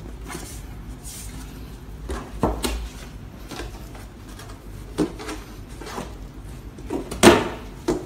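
Knocks and bumps of a laminated board being fitted onto the pegs of a cabinet frame and pressed into its groove by hand. A handful of separate knocks, the loudest near the end.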